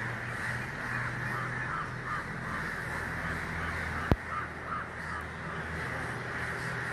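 A flock of crows cawing continuously, many calls overlapping. A single sharp click comes about four seconds in.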